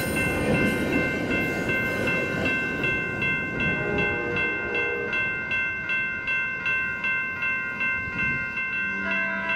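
Railroad grade-crossing bell ringing at about two strikes a second. A passing train's rumble fades out over the first few seconds.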